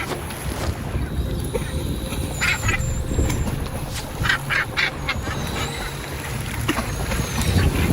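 Harsh, quacking seabird calls over steady wind and sea noise: two short calls about two and a half seconds in, then three more just past the middle.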